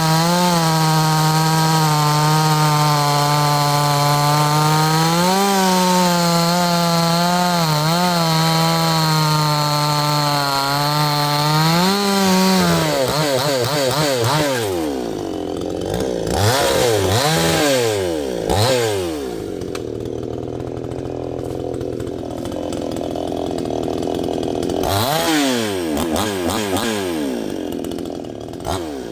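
Neotec NS862 62cc two-stroke chainsaw running at full throttle through a cut for about twelve seconds, its pitch rising briefly as the load eases. It then revs up and down between cuts, settles low for a few seconds and goes back to full throttle near the end.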